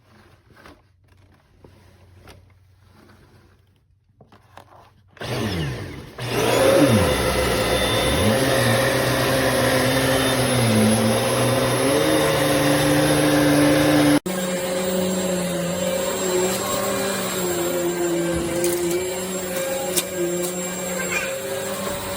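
Hoover MaxLife Elite UH75100 bagless upright vacuum switched on about five seconds in, its motor whining up to speed and then running steadily, the pitch shifting a little as it works. There is a brief break partway through.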